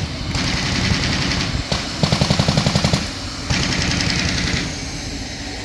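Machine-gun fire: a burst of rapid shots, about ten a second, about two seconds in, between stretches of a steady rushing hiss, all dying down near the end.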